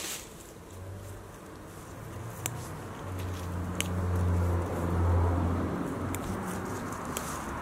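Weeds and grass being torn up by hand, rustling, with a few sharp snapping clicks. Under it a low motor hum swells through the middle and eases off near the end.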